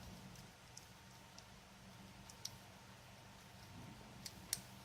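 Faint, sparse metallic clicks of an improvised pick, a thin strip of scrap metal, working the pin tumblers of a small KOALA padlock. The clicks come singly and in pairs, with the strongest pair near the end.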